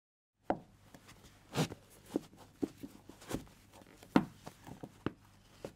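After a moment of dead silence, a string of irregular soft knocks, clicks and rustles as someone moves about and handles objects, over a faint low hum. The loudest knock comes about four seconds in.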